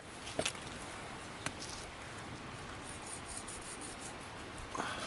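A knife cutting through a thick cooked steak: scraping and rubbing strokes with a few light clicks, and a louder scrape near the end.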